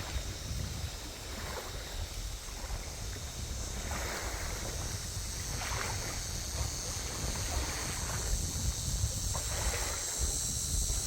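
Waterside ambience: a steady, high insect chorus over a low rumble of wind buffeting the microphone, with soft, irregular swishes of water lapping every second or two.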